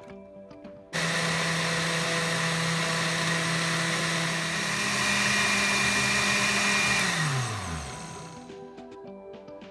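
Countertop blender switched on about a second in, puréeing vegetables and cilantro into a green sauce at a steady run; its motor pitch steps up partway through. Near the end it is switched off and the motor winds down, its pitch falling.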